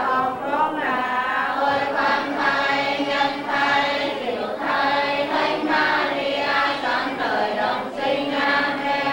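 A choir singing a slow hymn, several voices holding long notes together.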